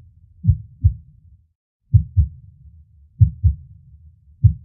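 Human heartbeat sound effect: low, paired lub-dub thumps about every 1.3 seconds over a faint low rumble. There is a brief break about one and a half seconds in before the beats resume.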